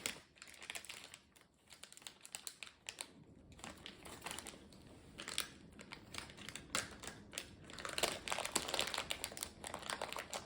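A plastic toy blind bag crinkling and rustling as it is handled and torn open by hand, a run of small crackles and clicks that gets busier over the last few seconds.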